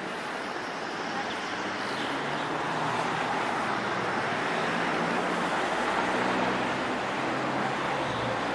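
Street traffic noise: a steady rush of tyres and engines that slowly grows louder over the first several seconds, with a faint low engine hum underneath.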